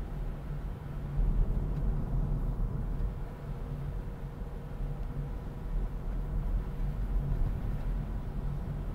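Car cabin noise while driving on a wet road: a steady low rumble of engine and tyres.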